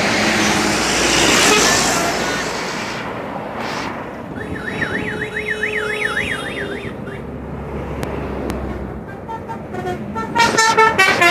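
Intercity buses' telolet musical horns on a highway: a large bus passes close with a loud rush, then a horn warbles up and down about three times a second for a couple of seconds, and near the end a burst of short stepped horn notes begins.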